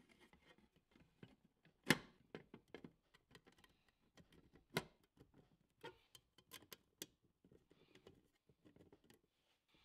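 Faint handling of a painted sheet-metal case being fitted together by hand: scattered small clicks and taps of the metal panels with light rustling, the sharpest click about two seconds in and another near five seconds.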